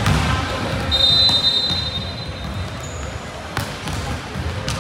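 Volleyballs being struck and bouncing on a wooden court in a large gym, several sharp separate hits over a low murmur of voices. A high steady tone sounds from about a second in and lasts about two seconds.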